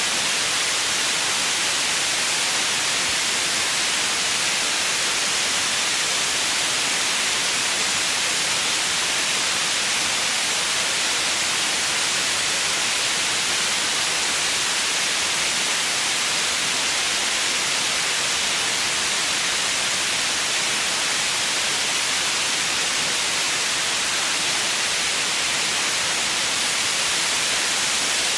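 Steady white noise: an even, unchanging hiss with little bass.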